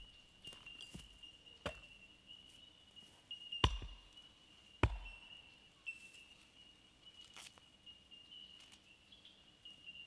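Several sharp knocks, the two loudest about a second apart near the middle, over a faint steady high-pitched whine.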